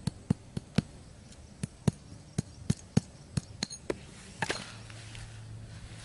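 Small hatchet knocking a wooden peg into hard dirt: about a dozen sharp, irregular hammering knocks over roughly four seconds, then a brief rustling scrape.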